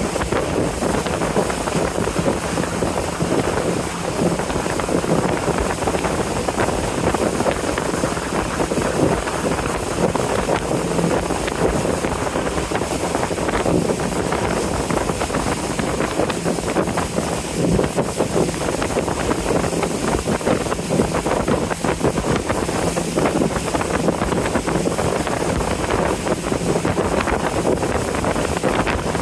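River cruise boat under way, its engine running with a steady, even hum, and wind blowing on the microphone.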